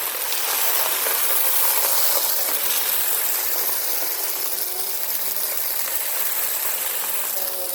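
Bissell Power Force Compact upright vacuum running steadily, sucking up sand and grit that rattle through it.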